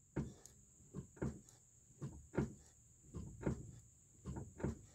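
A Nissan Armada's brake pedal being pumped five times, about once a second, each stroke a pair of short faint knocks: pressure being built up in the brake system before the front caliper's bleed screw is opened to bleed the brake fluid.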